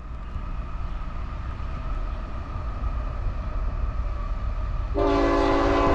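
CSX freight train's diesel locomotive approaching, a low rumble that builds slowly. About five seconds in, its air horn sounds a chord of several notes.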